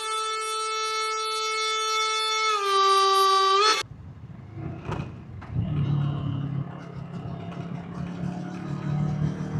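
A held, reedy musical chord that shifts pitch a couple of times, then cuts off suddenly about four seconds in. The Kawasaki Versys 650's parallel-twin engine follows, running through its exhaust.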